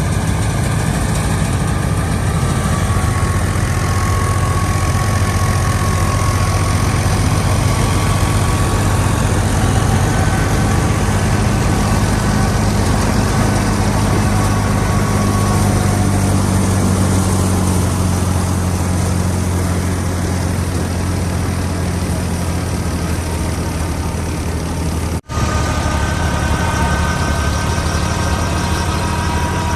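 Fiat 480 tractor's diesel engine running steadily under load while driving a wheat thresher, with a steady low hum and a fainter whine above it. The sound drops out for an instant near the end.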